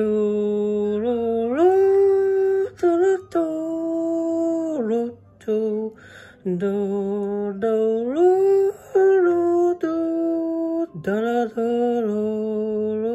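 A single voice humming a slow, wordless melody: long held notes that slide up and down from one to the next, with short breaks between phrases.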